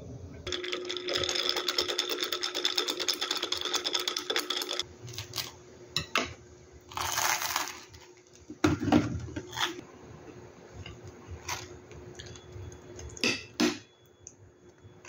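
A table knife scraping across crisp toasted baguette as jam is spread on it: a fast, dense rasping for about four seconds. It is followed by scattered clicks of cutlery on the plate and a few short crunches.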